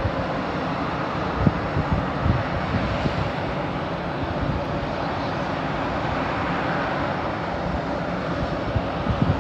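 Airbus jet airliner's engines running with a steady rush during pushback by a tug, with a few short low thumps about a second and a half in and near the end.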